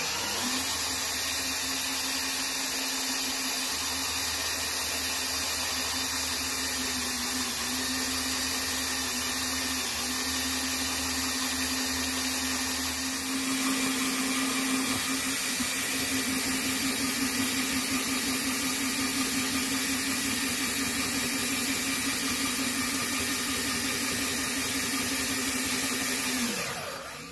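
Cordless DeWalt drill running a drill-driven transfer pump at a constant speed, pumping gasoline out of an ATV's fuel tank through a hose. It holds one steady pitch and gets a little louder about halfway through. Near the end the motor winds down and stops.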